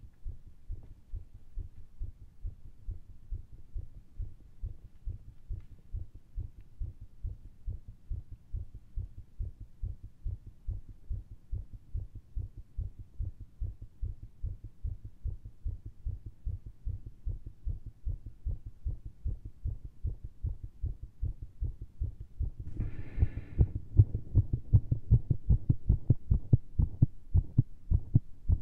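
A person's own fast, irregular heartbeat heard through a stethoscope, racing from a large dose of caffeine and straining pushes. About three-quarters of the way through the beats turn markedly louder, with a brief rustling noise as they do.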